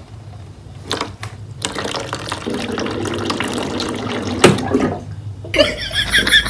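Water running from a water dispenser's tap into its drip tray as a cat works the lever, with a couple of clacks beforehand and a sharp knock about four and a half seconds in. Near the end the running stops and a quick, evenly repeated ticking starts.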